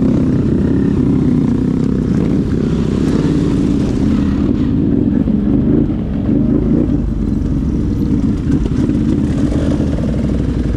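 ATV engine running steadily under way, its pitch wavering a little in the middle.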